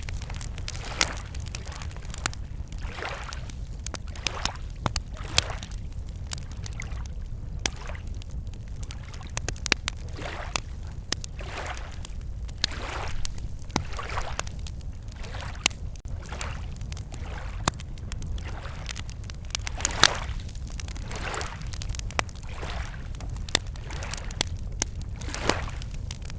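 Wood campfire crackling with frequent sharp pops, over small waves lapping at a lakeshore in soft, repeated swells, with a steady low rumble underneath.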